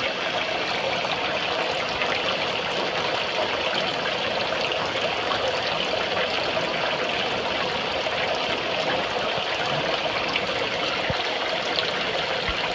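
Water running steadily into a hatchery fry tank: an even, unbroken rush of flowing water.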